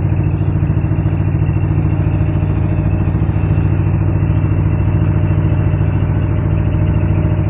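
A small engine running steadily at an even speed, with a fast, regular chugging beat.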